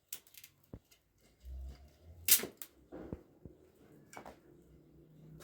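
A scattering of sharp clicks and knocks, the loudest a little over two seconds in, just after a dull low thump.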